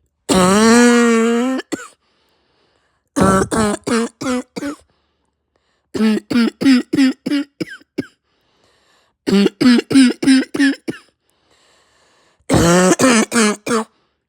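A woman's harsh, barking cough: a long drawn-out hoarse hack near the start, then four rapid runs of five to eight coughs each, a second or two apart. It is the cough of a chest cold with a raw, sore throat and a heavy chest.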